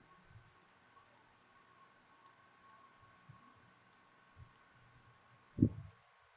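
Faint computer mouse clicks, scattered and often in quick pairs, as elements are dragged around on screen. One dull low thump about five and a half seconds in is the loudest sound.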